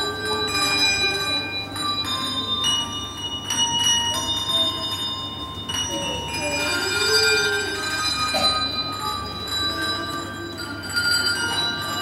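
Handbell choir ringing a melody, bell after bell struck and left to ring, several tones overlapping.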